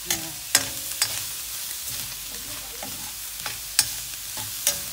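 Ground meat and onions sizzling in a stainless steel wok, stirred with a metal spatula that scrapes the pan, with several sharp clinks of metal on metal.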